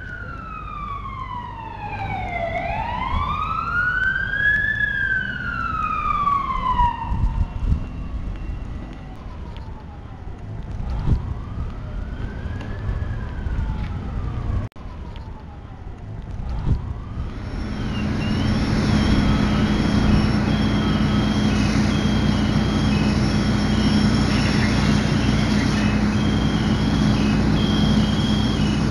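Emergency vehicle siren wailing in slow rising and falling sweeps, loud at first and fading by about halfway. Then a louder, steady rushing noise with a constant low hum takes over.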